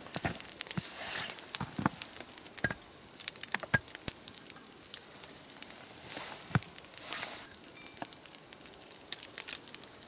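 Wood campfire crackling with frequent sharp pops, along with footsteps crunching in snow as a metal pot is carried over and set by the fire.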